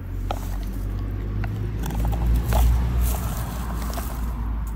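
Hands crumbling kinetic sand and handling a plastic toy fire truck: scattered small clicks and crackles over a steady low rumble that swells about halfway through.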